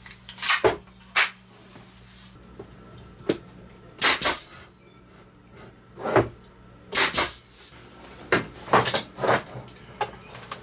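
Brad nailer being reloaded with longer brads and fired into a board: about a dozen sharp clacks and snaps, unevenly spaced, some in quick pairs.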